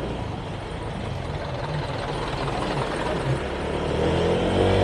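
Motorcycle engine running steadily at low road speed. About four seconds in, a second motorcycle's engine comes in close alongside and grows louder.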